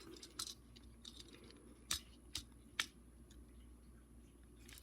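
Plastic toy-figure parts being handled and pegged into ports: a few sharp plastic clicks, the clearest about two seconds in and twice more shortly after, over faint fumbling.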